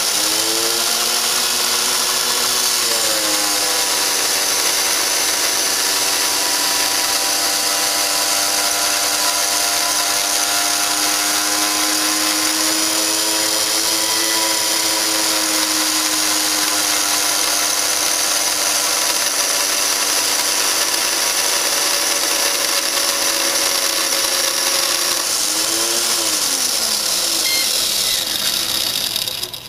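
DX-CD2 disc destruction device running a cycle on a split DVD half: a motor whine over a strong high hiss. The whine climbs in pitch about three seconds in, holds steady, then falls away and stops near the end as the cycle finishes.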